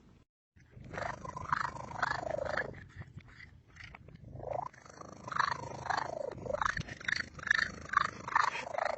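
Domestic cat meowing over and over in drawn-out calls that slide down and up in pitch, coming quicker and shorter in the second half.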